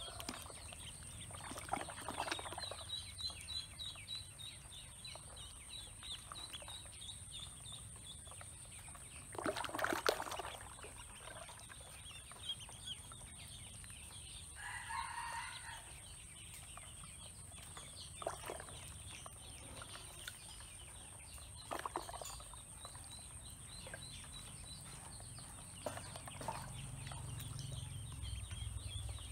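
Ducklings peeping in long runs of rapid, high chirps over a steady high whine. A few brief louder sounds come in between, the strongest about ten seconds in, and a lower call from another bird sounds once about halfway through.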